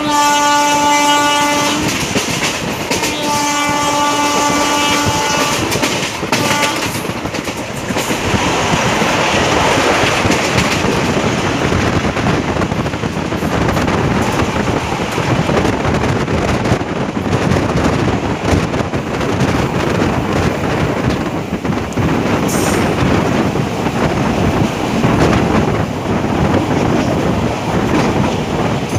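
Locomotive horn on an Indian Railways express sounding in blasts: one already going that stops about two seconds in, a second about two seconds long soon after, and a short toot about six seconds in. After that comes the steady rush of the moving train, with wind and wheels on the rails.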